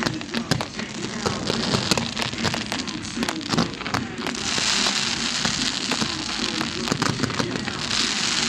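Fireworks display: dense crackling and popping from glittering comets, with a rush of hissing about four seconds in and again near the end.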